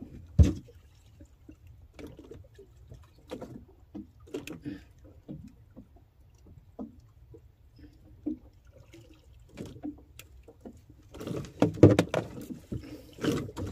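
Hands working fishing line in a small boat: scattered light knocks and clicks against the hull over water lapping. A sharp thump about half a second in, and a louder run of knocks and bumps near the end.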